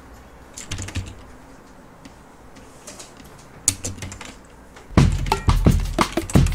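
Background music: scattered light clicks over a quiet bed, then about five seconds in a louder beat with drums starts.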